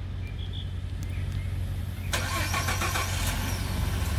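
Ford F-150 pickup's engine running at idle with a steady low hum. A broader rush of engine noise joins about two seconds in.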